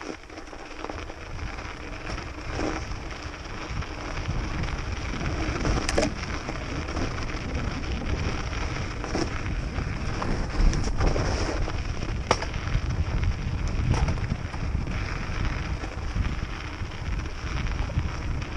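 Wind buffeting a mounted action-camera microphone over the low rumble of riding a snowy forest trail, with scattered sharp knocks and clicks from bumps.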